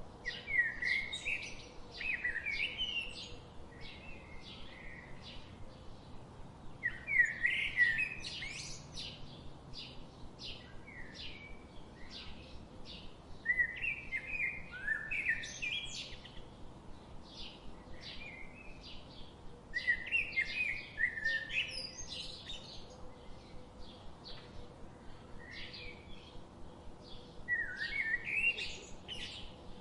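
Wild birds singing: one bird repeats a loud, quick song phrase about every six or seven seconds, five times in all, over a steady stream of rapid short chirps from other birds.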